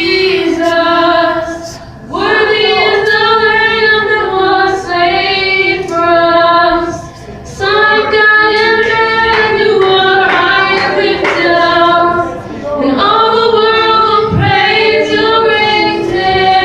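Female voices singing a worship song in long held notes with a slight waver, in phrases broken by short pauses.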